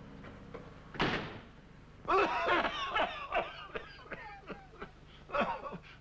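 A door slams shut with a single bang about a second in; after it, a man laughs in quick uneven bursts.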